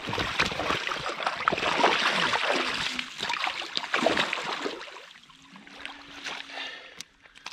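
Water splashing and trickling, busy for about the first five seconds and then dying away to a faint trickle.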